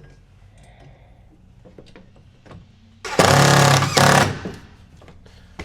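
Impact driver with a Phillips bit running loudly for just over a second, driving a screw to fasten the window frame to the van's slider door. It briefly eases off and then hammers once more before stopping.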